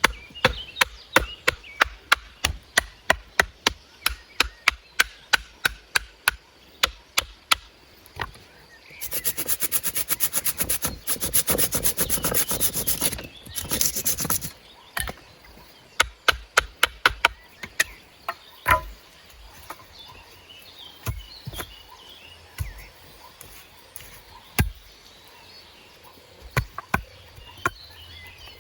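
Wood being worked with a hand tool: a run of sharp strokes about three a second, then about five seconds of fast sawing strokes, then scattered knocks.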